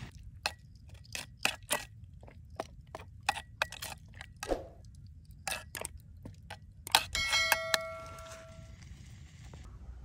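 A metal spoon clinking and scraping against a metal cooking pot while stirring spaghetti, a string of sharp irregular clicks. About seven seconds in, a harder knock sets the metal ringing for over a second.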